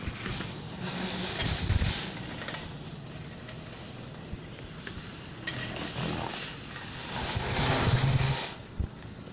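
Wire shopping cart being pushed across a smooth store floor, a steady rolling rumble that swells louder about a second in and again around eight seconds.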